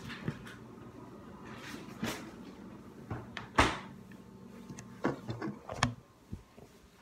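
Scattered household knocks and clatters over a faint steady hum, the loudest about three and a half seconds in, then a run of bumps and rubbing near the end as a phone is picked up and handled.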